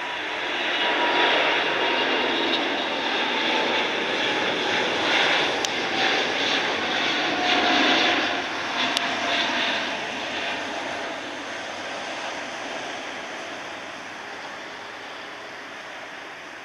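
Airbus A350's Rolls-Royce Trent XWB twin jet engines at takeoff power as the airliner climbs out: a loud jet roar that swells about a second in, stays strongest for the first eight seconds or so, then fades steadily as the aircraft recedes, with faint whining tones sliding slowly lower.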